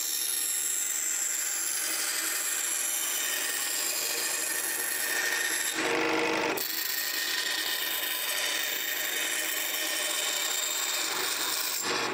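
Scroll saw running steadily as its thin blade cuts a sheet of soft wood, with a louder stretch of about a second near the middle.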